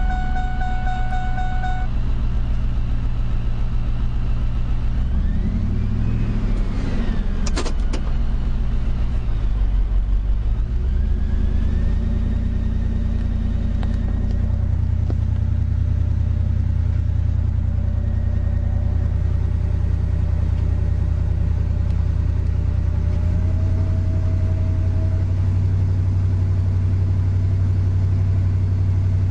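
A Lightning's engine running with a steady low drone that deepens about a third of the way through. The owner feels it shake a little and suspects a misfire.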